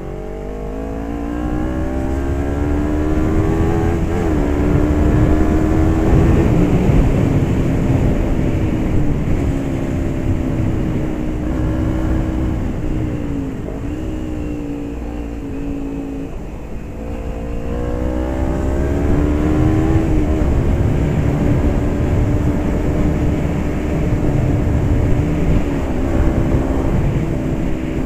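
Motorcycle engine under way while riding, with a low wind rumble. The engine's pitch climbs over the first several seconds and then holds at a steady cruise. It sags around the middle, climbs again about twenty seconds in and holds steady to the end.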